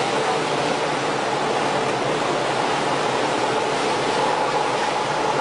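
Steady rush of sea water churned up around a lifeboat dragged through the water alongside a moving ship, with a faint steady hum underneath.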